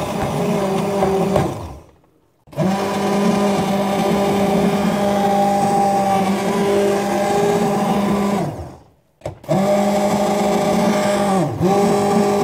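Hand-held immersion blender motor running steadily as it purées cooked broccoli soup in a steel pot. It is switched off twice and started again, about two seconds in and about nine seconds in. Its pitch sags briefly under load near the end.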